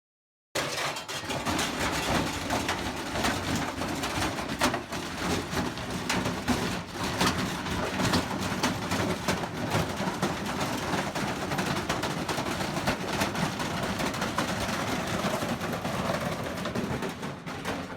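Washing machine running hard, shaking and rattling with many rapid knocks over a steady hum. It starts abruptly about half a second in.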